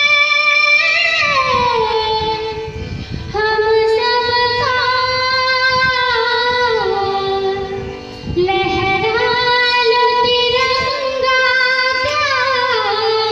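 A girl singing, holding long notes and sliding down between them in ornamented glides.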